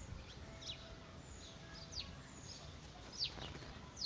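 Small birds chirping: short, high chirps that drop quickly in pitch, about one a second, the loudest a little over three seconds in.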